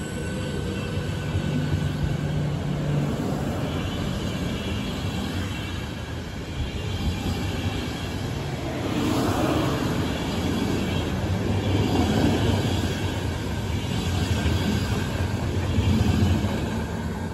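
Passenger coaches of an electric-hauled train rolling past on the rails, with the wheel noise swelling several times in the second half as bogies go by. A low steady hum sounds in the first three seconds.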